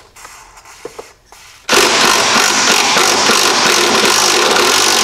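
Cordless power driver running steadily, starting abruptly about a second and a half in, spinning a rusted 13 mm nut off an airbox stud. A few light handling clicks come before it.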